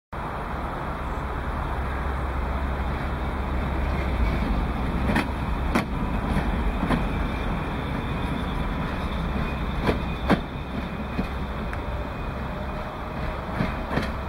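Narrow-gauge passenger train running along the track, heard from on board: a steady rumble of the coaches' wheels and running gear, with a few sharp clacks, some in pairs, as the wheels cross rail joints.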